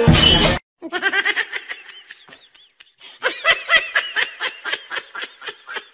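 A loud, half-second burst of noise, then high-pitched laughter in quick repeated pulses, easing off about two seconds in and starting up again a second later.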